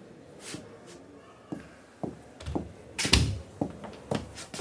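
Footsteps on a hard floor, about two steps a second, with one louder, deeper thump about three seconds in.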